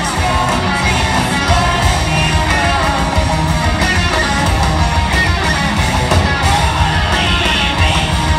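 Live rock band playing loud, heavy music with electric guitars, drums and a singer, heard through the crowd in a large hall.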